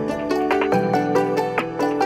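Instrumental music with a quick run of notes over a steady bass line, played back through headphones and picked up by microphones. The bass note changes about a second in.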